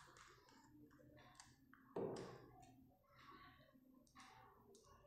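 Faint clicks and scrapes of a small screwdriver working the belt-clip screws on the back of a Baofeng walkie-talkie's plastic casing, with one louder click about two seconds in.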